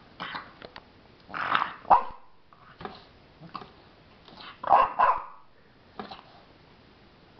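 A French bulldog puppy barking in short, separate barks, with the loudest pair about a second and a half in and another loud burst about five seconds in.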